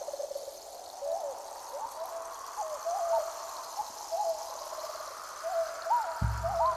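Background music: a high melody of short notes that slide up and down over a held tone, with a low drum beat coming in near the end.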